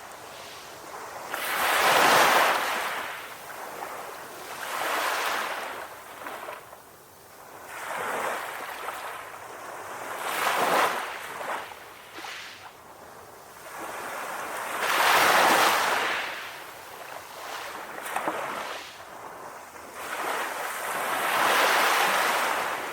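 Ocean waves breaking and washing on a shore, a rushing hiss that swells and fades every few seconds, with bigger breakers about 2, 15 and 22 seconds in.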